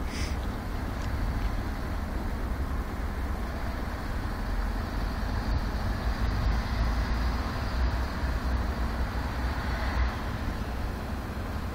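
Steady outdoor railway-station background noise: an even rumble and hiss with heavy, unsteady low-end rumble and no single distinct event.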